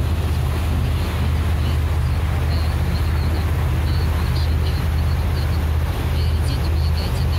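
Motorboat engine running steadily with the boat underway, a constant low drone under the rush of wind and churning wake water.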